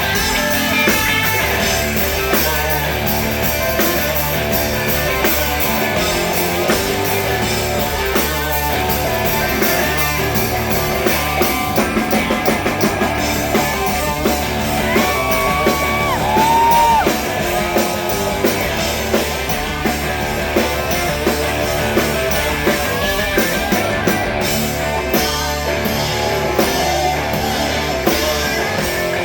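Live rock band playing loud, with electric guitars and a drum kit; a few held, sliding high notes stand out about halfway through.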